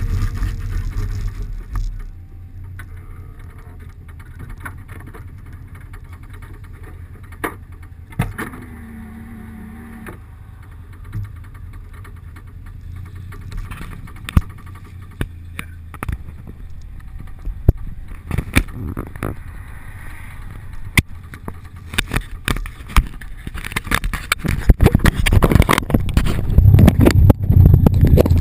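Car engine and wind noise picked up by a GoPro HERO2 in its closed-back case on a suction-cup mount. A loud rumble drops off about two seconds in to a low running hum with scattered clicks. Near the end it builds again into loud rumbling with many sharp knocks.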